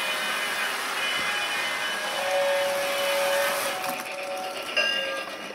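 Hogwarts Express model train running along its track: a steady mechanical running noise from the locomotive's motor and wheels, with a held tone for about a second and a half near the middle.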